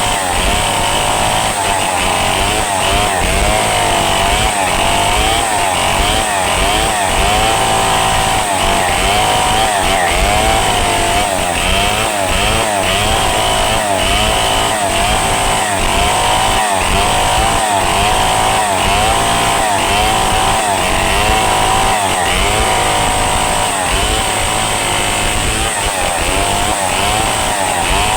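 Two-stroke chainsaw running at high revs while cutting into the trunk of a rain tree. The engine pitch keeps dipping and rising as the chain bites and frees in the wood.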